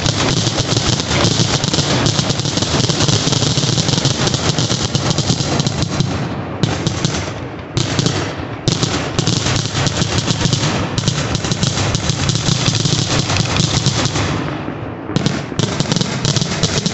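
Aerial fireworks going off in a rapid, nearly continuous barrage of bangs and crackles. It thins briefly about six to nine seconds in and again near the end.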